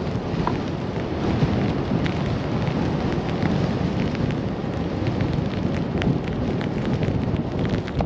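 Strong blizzard wind buffeting the microphone: a steady, heavy rumble with a few faint ticks.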